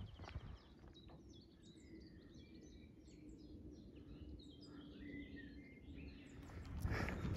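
Faint birdsong: a songbird's short chirps and trills over a quiet outdoor background, with walking footsteps stopping at the start and starting again near the end.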